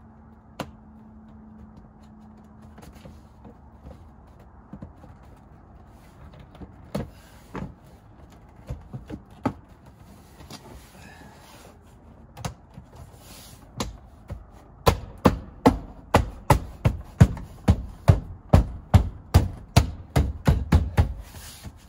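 Car door trim panel being knocked back into place, its clips thumped home: scattered knocks at first, then a quick run of strong thumps, about three a second, through the last several seconds.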